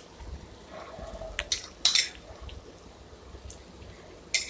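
A spoon scraping and clinking against a cooking pot a few times, with soft wet sounds, as curd is mixed into spiced vegetables; the loudest strokes come around one and a half to two seconds in and again near the end.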